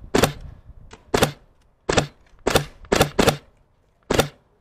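An airsoft gun fired close by in seven single shots at an uneven pace, each a sharp crack with a short low thud.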